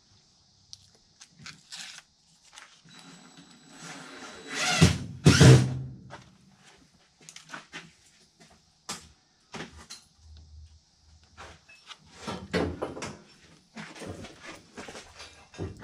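Handling noise from a black plastic fitting being fitted against a sheet-metal furnace cabinet: scattered clicks, knocks and scraping. The loudest knocks and scrapes come about five seconds in, and another cluster comes near the end.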